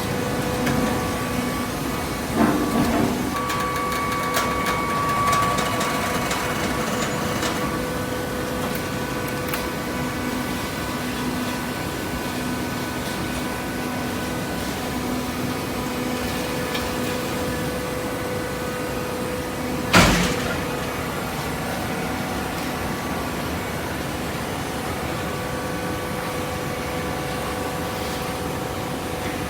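Hydraulic waste-paper baler running: a steady motor and pump hum with several fixed tones. There are a few light knocks near the start and one sharp, loud clank about two-thirds of the way through.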